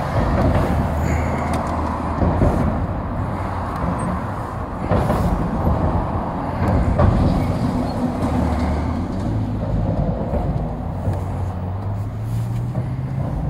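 City street traffic, with a motor vehicle's engine running close by and a steady low rumble; the engine pitch rises slightly near the end.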